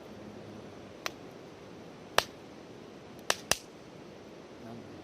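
Burning firewood in a campfire popping and cracking: four sharp cracks, the loudest about two seconds in, then two in quick succession over a faint steady background.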